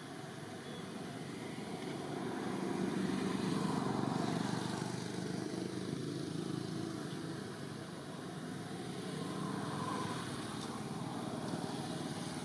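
Low, steady rumble of distant motor traffic that swells twice, about three seconds in and again near ten seconds, as vehicles pass.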